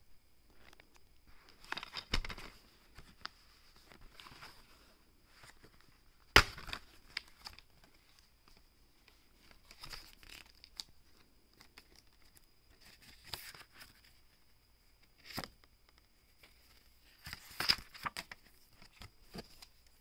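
Plastic DVD case and its paper inserts being handled: irregular rustling of paper and clicks and knocks of the plastic case, with the sharpest click about six seconds in.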